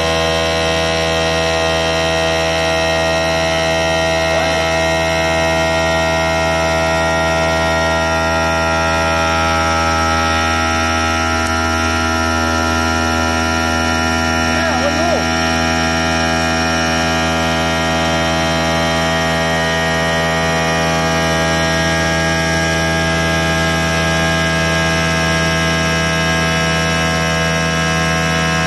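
CNC machine spindle running steadily under load, its cutter milling a rounded cutout in a slab under a water coolant spray. It makes a constant whine and hum of many steady tones.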